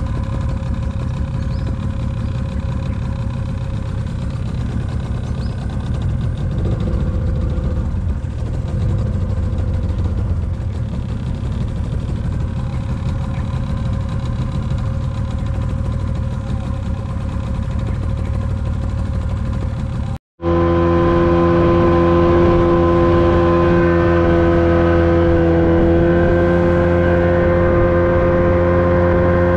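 A small boat's engine running steadily as the boat moves along a river. About two-thirds of the way through the sound cuts out for a moment, after which the engine runs louder with a clearer, steady hum.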